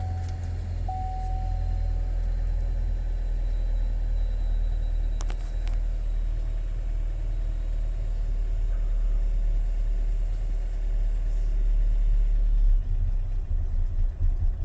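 Chevrolet Equinox's 1.5 L turbocharged four-cylinder engine idling steadily while its fuel pressure is run down. Near the end it stumbles and runs unevenly as the pressure is used up. A short chime tone sounds in the first two seconds.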